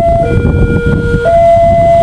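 Railway level-crossing warning siren sounding a loud two-tone alarm, high and low tones alternating about once a second, signalling that a train is approaching. A steady low rumble runs underneath.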